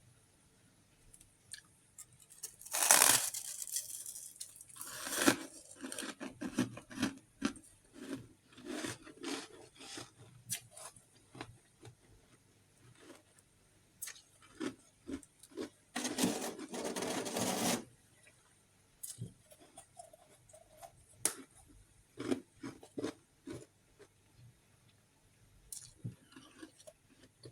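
Chunks of refrozen freezer frost being broken and crunched close to the microphone: scattered crackles and clicks, with two longer rasping stretches, one about three seconds in and one of about two seconds past the middle.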